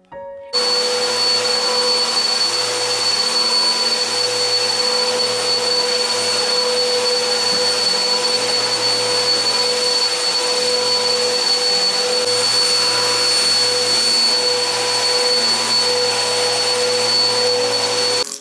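Corded vacuum cleaner running on a rug: a steady rush of air with a constant motor whine. It starts suddenly and cuts off suddenly near the end.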